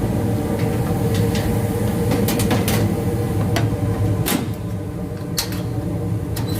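Gas furnace running with a steady hum from its burners and exhaust motor, while several sharp metal clicks and clatters ring out as the furnace's front panel is fitted back on.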